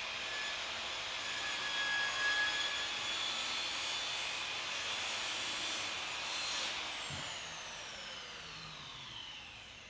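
Electric power-tool motor running steadily with a whine, then switched off about seven seconds in and winding down, its whine falling in pitch as it slows.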